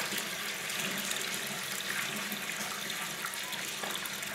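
Water running from a bathtub tap into a tub of foamy water: a steady splashing rush.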